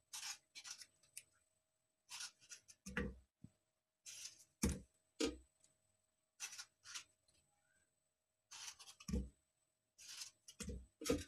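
A knife slicing through whole tomatoes held in the hand, in short crisp cuts at irregular intervals. Several cuts come with a soft thud as the quartered pieces drop into an aluminium pressure cooker.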